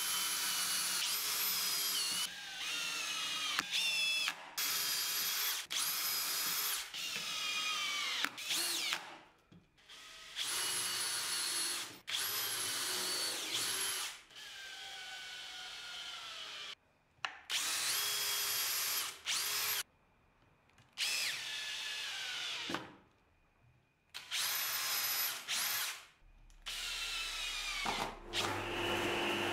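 Cordless 18-volt drill-driver boring pilot holes and driving screws into plywood. It runs in repeated bursts of a second or two, its motor whine sliding in pitch as the bit loads up, with short pauses between. Near the end a steady lower hum starts.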